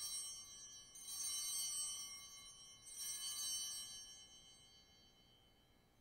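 Altar bells rung three times at the elevation of the consecrated host: a bright, high ringing of several small bells, struck again about one and three seconds in, each stroke dying away, fading out near the end.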